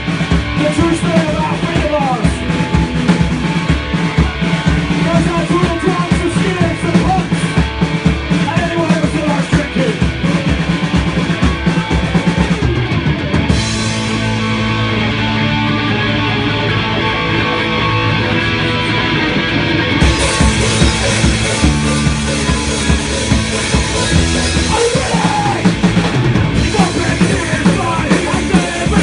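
Live rock band playing a song with a full drum kit. The cymbals drop out about halfway through for several seconds, then the full band comes back in.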